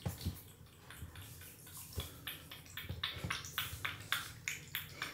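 A cat lapping and eating wet food thinned with water: quick, wet clicks, settling into a steady three to four a second about two seconds in.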